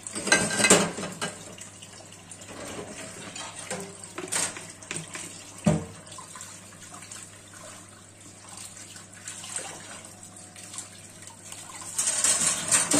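Tap water running into a stainless steel sink while plates are washed by hand, with a few sharp clinks of dishes against the sink and each other. It gets louder near the end.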